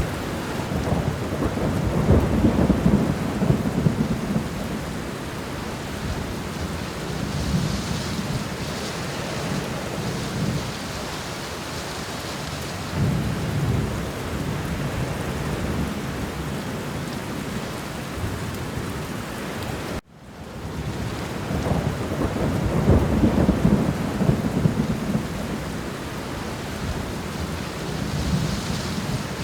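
Steady rain with low thunder rumbling in several swells. About twenty seconds in the sound cuts out suddenly for a moment and fades back in, like a loop restarting.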